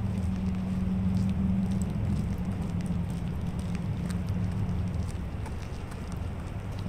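Low engine hum, steady for the first few seconds and fading about five seconds in, over an even hiss of background noise.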